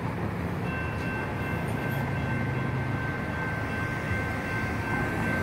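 CAF light rail train running with a steady low hum and a thin high whine that comes in just under a second in.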